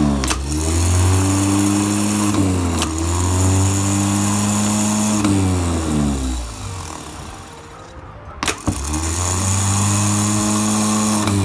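Rebuilt 12-volt starter motor being bench-run off jumper wires: a sharp click as the solenoid engages, then the motor spinning up to a steady hum. About five seconds in it is cut off and winds down with falling pitch, and after a short pause it clicks in and spins up again.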